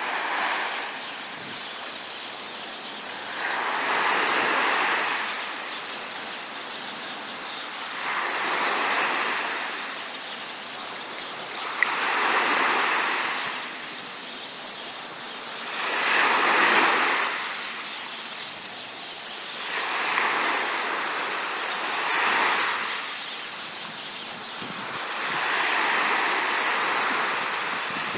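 Sea waves breaking and washing up onto a beach, one wave about every four seconds, each swelling and fading over a steady hiss of surf.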